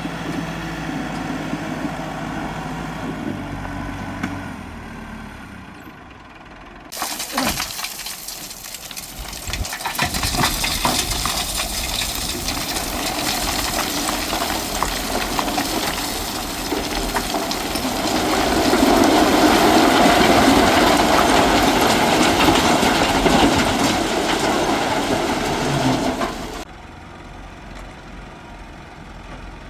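An engine running steadily, then, after a sudden change, a long noisy rush full of rattling and scraping that grows louder past the middle and stops abruptly near the end.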